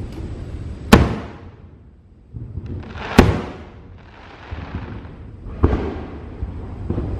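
Aerial fireworks exploding: three sharp booms, about a second in, past three seconds and before six seconds, each trailing off in an echo, with a fizzing crackle between the second and third.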